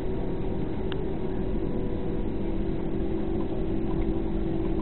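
Cabin noise inside a Boeing 767 airliner taxiing after landing: the steady rumble of the engines and airflow, with a steady low hum running through it and a faint tick about a second in.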